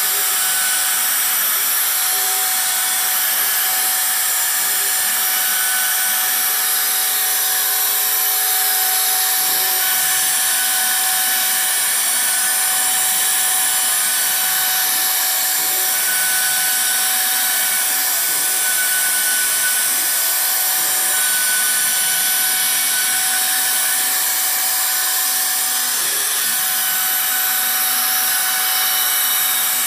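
CNC router spindle cutting grooves into a melamine board: a steady whine over a strong hiss of cutting.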